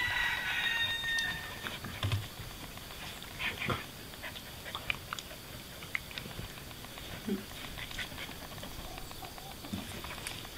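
Two dogs play-fighting: scattered soft growls and short dog vocal sounds with scuffling and clicks, and a thin high whine in the first second or so.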